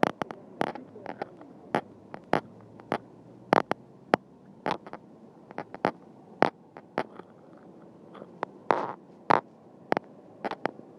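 A necklace pendant tapping against a handheld recording device held to the chest while walking: irregular sharp clicks, about one or two a second, some louder than others.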